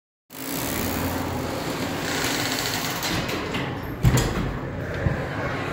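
Small electric motor whirring with a steady hum, typical of a Halloween animatronic prop in motion, with a thump about four seconds in.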